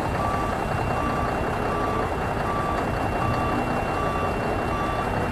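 Truck reversing alarm beeping in a steady repeated pattern over a low, even engine rumble.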